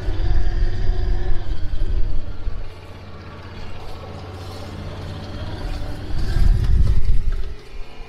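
Side-by-side utility vehicle's engine running on the move, with two louder spells of low rumble: one in the first two and a half seconds and another about six seconds in.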